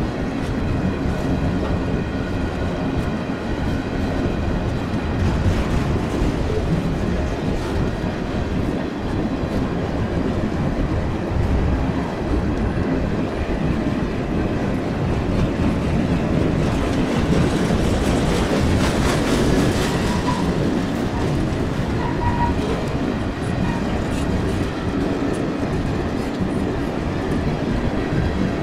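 Freight train of covered grain hopper cars rolling steadily past, steel wheels running on the rails. A brighter hiss rises for a few seconds just past the middle.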